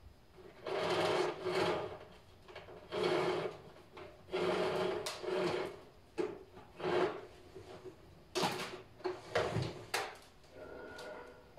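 A canister vacuum cleaner being handled and its power cord pulled out, not switched on. There are about ten short rasping, scraping strokes, each under a second, with brief pauses between them.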